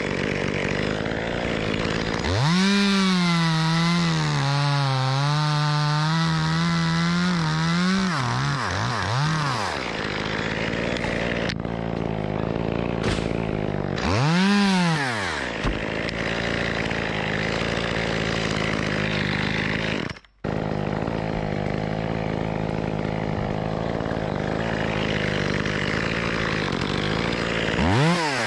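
Echo CS-2511TES top-handle two-stroke chainsaw revving up and down several times and cutting through the trunk, its pitch wavering under load. Between cuts it drops back to a steady lower speed.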